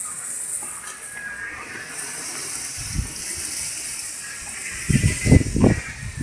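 Airy rushing whoosh of a radio-controlled glider passing overhead, swelling over the first couple of seconds and then fading. About five seconds in, loud low buffeting of wind on the microphone takes over.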